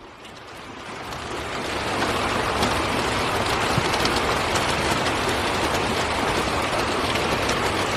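Heavy rain pouring down, a dense steady hiss that builds over the first two seconds and then holds.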